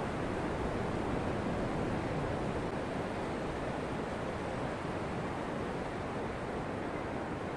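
Ocean surf breaking and washing steadily onto a sandy beach.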